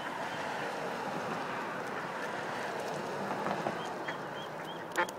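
Steady rushing noise that slowly eases off. A few short, high chirps repeat near the end, and there is one sharp click.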